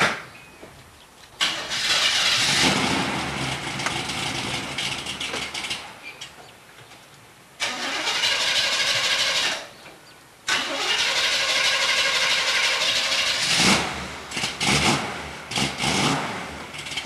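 A 1969 Camaro SS's 454 big-block V8 starting and running. It cuts out twice and fires up again each time, and the revs rise and fall toward the end.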